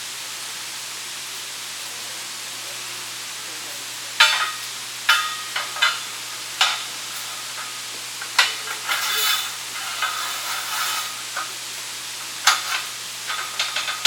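Electric arc welding: a sputtering, frying crackle that starts about four seconds in and comes in short, stop-start runs of arc.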